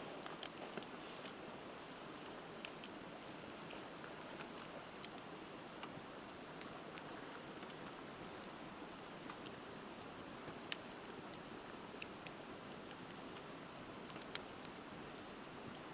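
Wood bonfire crackling, with sharp pops every second or few, over the steady sound of a flowing river.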